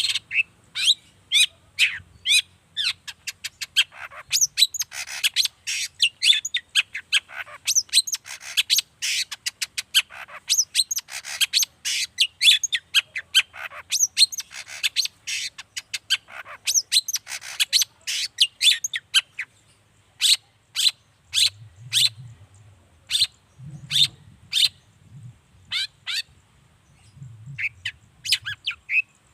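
Long-tailed shrike (cendet) singing in full voice: a fast, dense stream of short, sharp chattering notes that, after about twenty seconds, opens out into separate sharp notes at a steady pace.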